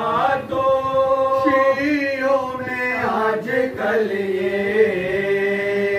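Men's voices chanting a Shia mourning lament (noha) into a microphone, in long drawn-out notes that settle onto a lower held note about four seconds in.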